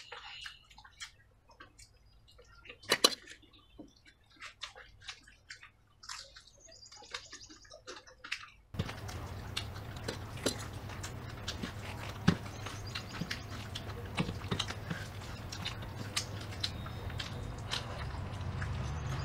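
Wet chewing and squelching as kadhi pakoda and rice are eaten by hand: a string of small clicks, smacks and squishes, with one sharp louder click about three seconds in. About nine seconds in, a steady low hum and hiss comes in suddenly under the eating sounds.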